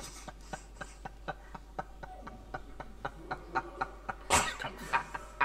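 Short bursts of stifled, breathy laughter following one another, with a louder laugh or cough about four and a half seconds in.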